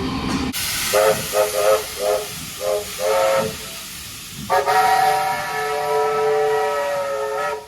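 A locomotive's multi-note horn sounds about six short toots in quick succession, then, after a pause of about a second, one long chord-like blast of about three seconds, over a steady hiss.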